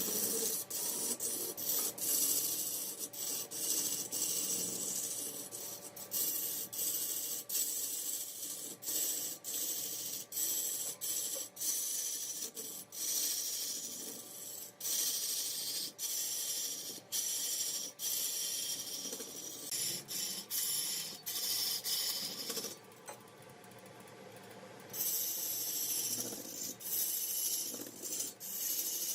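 Hissing rasp of a cutting tool or abrasive working wood that spins on a wood lathe, broken by many brief pauses and dropping away for about two seconds late on.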